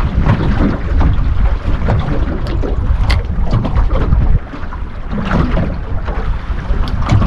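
Wind rumbling on the microphone aboard a small fishing boat, with water lapping at the hull. A few short sharp ticks and knocks come through, about two and a half, three, and seven seconds in.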